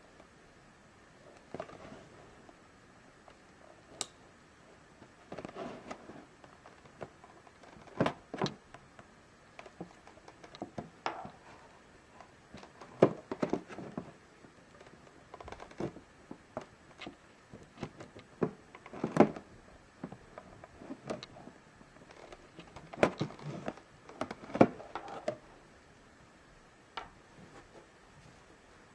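A cardboard figure box being handled and worked at with a knife: irregular taps, clicks and scraping rustles of hands and blade on the cardboard, with a few sharper knocks.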